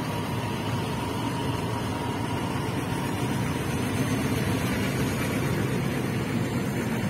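State Railway of Thailand passenger coaches rolling past, a steady rumble of steel wheels on the rails.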